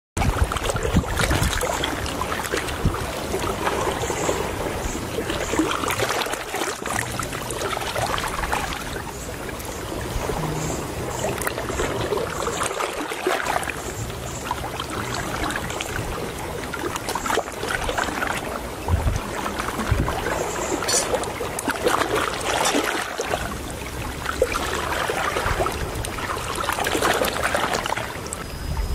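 Shallow seawater trickling and lapping among rocks on a tidal shore, with scattered knocks and splashes.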